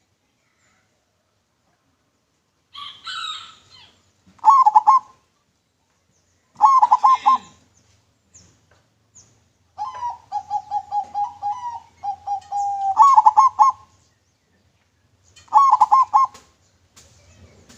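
Zebra dove (perkutut) cooing in full song: several short bursts of quick rolling coos, with a longer run of repeated notes in the middle. Higher chirps from another bird come in between the phrases.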